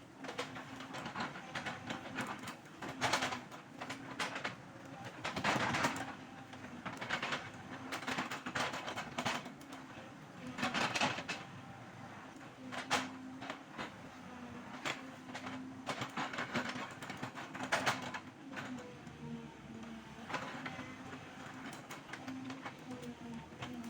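Excavator working: its diesel engine runs with a steady hum, broken by irregular loud, noisy surges of clattering and crashing every few seconds as it works the overgrown ground.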